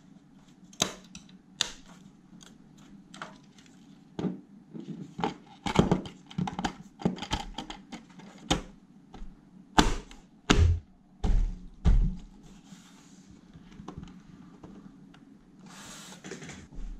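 Clicks, snaps and knocks of plastic and sheet-metal parts as a UPS's battery door and front bezel are pressed back into place by hand, with a few heavier thumps around ten to twelve seconds in.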